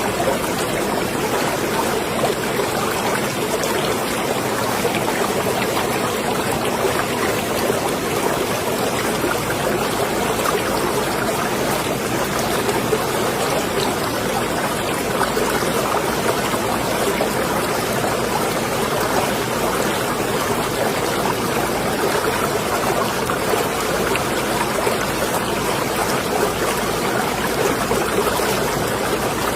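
Water lapping and splashing in a marina: a steady, even wash of small splashes with no single event standing out.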